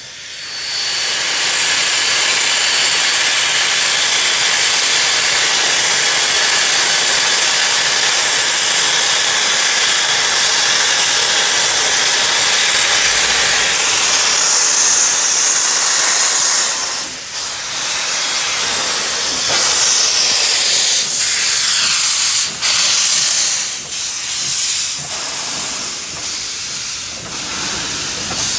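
Steam locomotive 2705 passing close, its open cylinder drain cocks blowing a loud, steady hiss of steam. After about 17 seconds the hiss turns uneven, rising and falling as the engines go by.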